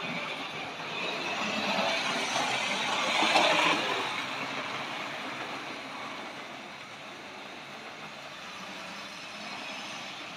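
Tri-ang model railway train running on the track, a whirring, rattling run of motor and wheels that grows louder to a peak about three seconds in as it passes close, then fades to a lower steady level.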